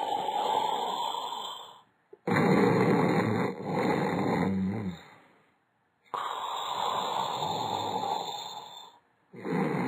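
A sleeping person snoring in slow, regular breaths. A louder, lower snore comes about two seconds in and again near the end, each alternating with a softer, hissier breath, with short pauses between.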